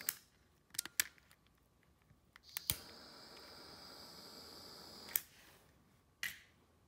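Handheld butane torch: its flame hiss cuts off with a click, a few light clicks follow, it relights with a sharp click about two and a half seconds in, hisses steadily for about two and a half seconds while shrinking heat-shrink tubing over wire splices, and is shut off with a click. One more click comes near the end.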